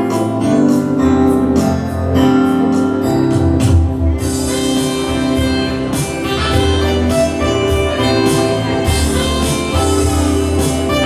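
Instrumental music for the morning prayer: held chords over a steady beat, with no voices.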